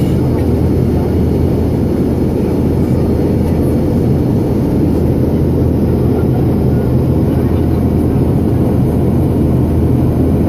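Jet airliner cabin noise during climb-out after takeoff: a loud, steady, low drone of the engines and rushing air, with a constant hum underneath, heard from inside the cabin.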